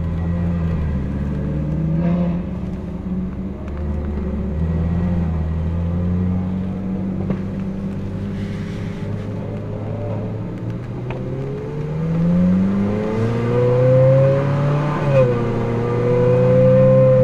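Car engine running at low, fairly steady revs, then revving up under acceleration from about twelve seconds in. A brief dip in pitch near fifteen seconds marks a gear change before it holds at higher revs.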